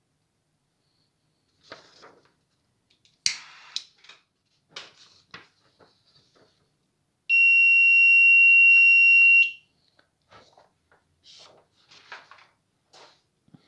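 Alarm buzzer of a homemade MQ-series gas-sensor circuit sounding one steady high-pitched beep for about two seconds, set off as the sensor reacts to the lighter's gas. Earlier there is a sharp click and some scattered rustling.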